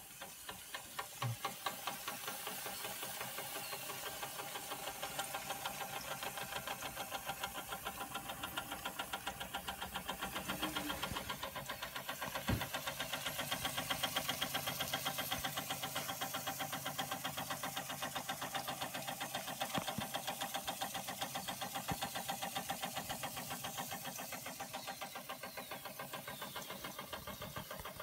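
Early Schoenner live-steam toy engine with a vertical brass boiler, running under steam with a rapid, even chuffing beat that picks up in the first couple of seconds.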